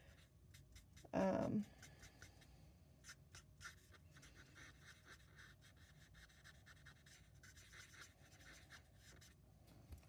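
Stampin' Blends alcohol marker stroking and dabbing on cardstock: faint, scratchy strokes repeated irregularly. A brief vocal sound comes about a second in.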